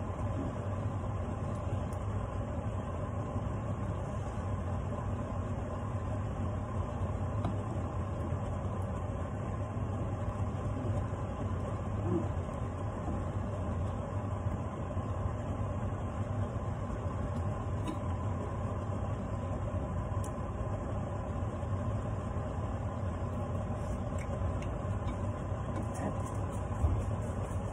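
A kitchen range-hood extractor fan running with a steady hum over the stove, with one sharp utensil knock near the end.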